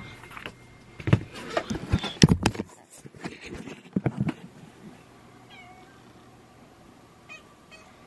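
Knocks, rustling and footsteps of someone getting up and moving through the first few seconds, then a house cat giving a short, faint meow about five and a half seconds in.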